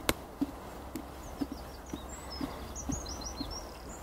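Ponies grazing close by: short, rhythmic tearing and chewing of grass, about two bites a second, after a sharp click at the start. A small bird sings quick, repeated chirps in the background from about a second in.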